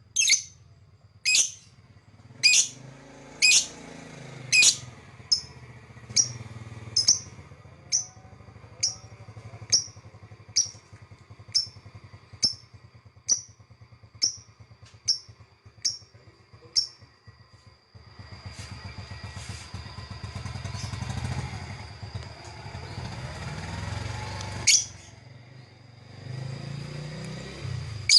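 A lovebird gives sharp, high chirps in a regular series, about one and a half a second, loud at first and fading out around halfway. After that, a low mechanical rumble with broad noise swells in the background, and one more loud chirp comes near the end.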